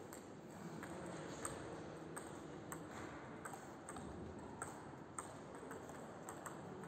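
Table tennis rally: the ball clicking off the bats, one of them on a DHS Hurricane Long 5 blade, and bouncing on the table. About ten sharp clicks, roughly one every half-second to second, over a steady hall hiss.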